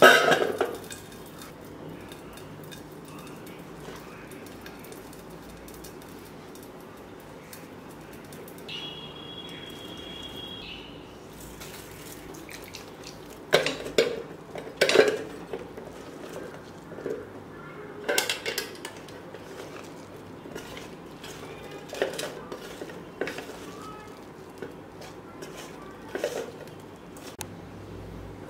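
A steel plate clanks loudly as jackfruit pieces are tipped onto it from a glass bowl, followed later by a handful of separate light knocks and clinks of the plate as the pieces are mixed by hand with flour and spices.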